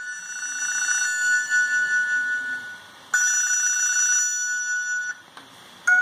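Mitsubishi M342i mobile phone playing one of its built-in ringtones, an electronic imitation of a telephone ring. It rings twice, each ring opening with a rapid warble and then holding a steady tone.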